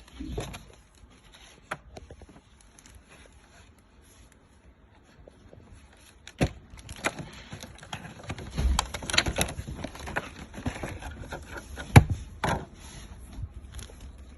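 Packaging of a neck duster brush being handled and opened by hand: scattered sharp knocks and clicks, with a stretch of scraping and rubbing in the middle and the loudest knock about twelve seconds in.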